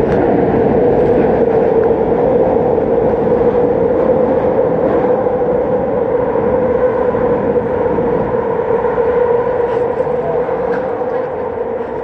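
Elevated Market-Frankford Line train running on the overhead track: a loud, steady rumble with a constant hum, easing off near the end.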